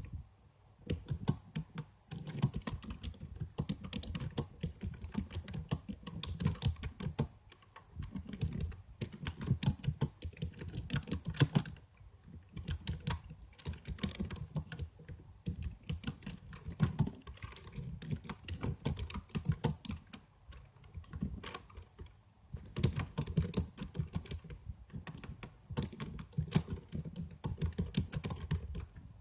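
Computer keyboard being typed on in quick runs of keystrokes, with short pauses between bursts every few seconds.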